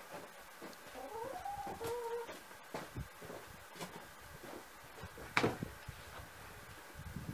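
A heavy log is set down on a wooden sawhorse with one sharp thud about five seconds in, among a few lighter knocks and footsteps. Earlier comes a short wavering animal call, rising and falling in pitch, that sounds like a cat's meow.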